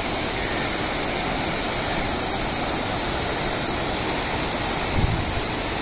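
Waterfall pouring steadily, a continuous rush of water. A brief low bump about five seconds in.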